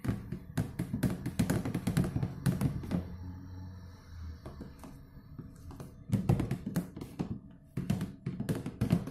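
A plastic spoon stirring foamy soap mixture in a plastic tub, knocking and tapping against the sides in quick runs. The taps are dense for the first few seconds, ease off in the middle, and come back in two bursts near the end.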